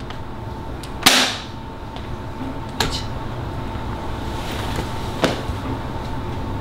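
A single sharp crack about a second in that dies away quickly, followed by two fainter knocks, over a faint steady hum.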